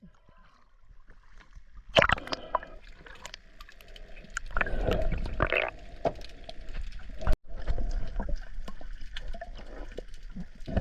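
Water splashing and gurgling around a small boat. It starts suddenly about two seconds in and drops out for an instant about seven seconds in.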